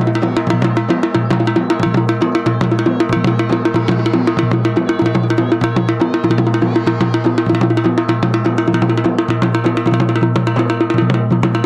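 Garhwali dhol and damau drums played together in a fast, steady rhythm, with steady held pitched tones running underneath.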